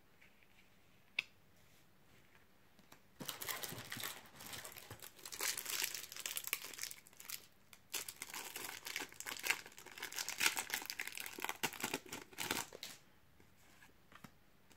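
Foil wrapper of a Topps Match Attax trading-card pack crinkling and tearing as it is ripped open and the cards pulled out, from about three seconds in until shortly before the end. A single sharp click about a second in.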